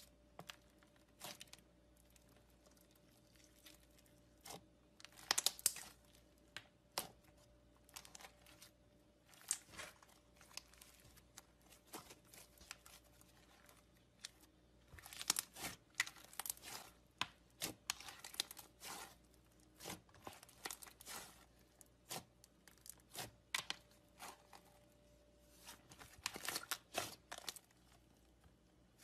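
Slime being squished, poked and stretched by hand, giving irregular bursts of sharp crackling clicks and pops, thickest in a few clusters.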